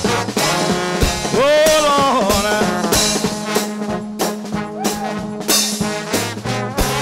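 Trombone shout band playing gospel: a choir of trombones holding and sliding notes, some bending up and down, over a steady beat.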